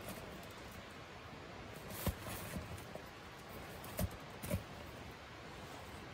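Three short, sharp clicks about two, four and four and a half seconds in, from camp cooking gear being handled, over a faint steady hiss.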